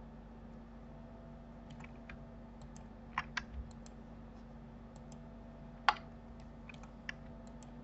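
Computer keyboard and mouse clicks: scattered, irregular taps starting about two seconds in, with a small cluster in the middle and one sharper tap near six seconds, over a steady low electrical hum.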